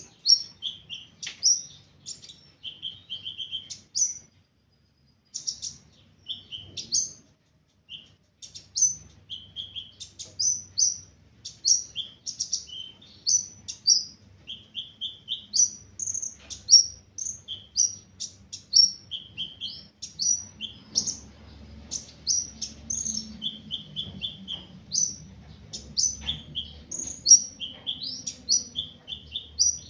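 A sunbird, the Indonesian 'kolibri ninja', singing: a fast, continuous run of short, high chirps and brief trills. It pauses briefly twice in the first third. The bird is back in full song after its care routine.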